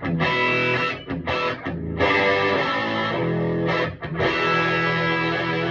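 Electric guitar on a humbucker pickup played through the tweed channel of a Vintage Sound Amp: ringing chords and notes with brief breaks about a second in and near four seconds.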